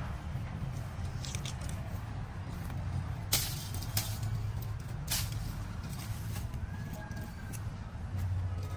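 Steady low outdoor rumble with a few sharp snaps and crackles of dry twigs and brush being stepped through, the loudest about three and a half and five seconds in.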